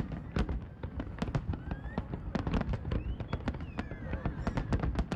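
Aerial fireworks display: many shells bursting in quick succession, a dense run of sharp bangs and crackles, several a second, over a low booming beneath.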